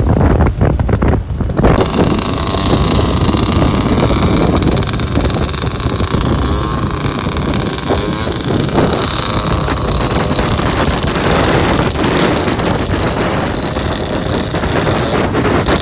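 Motorcycle engines running as the bikes ride along a road, with wind rushing over the microphone on the moving camera bike. The sound shifts about two seconds in.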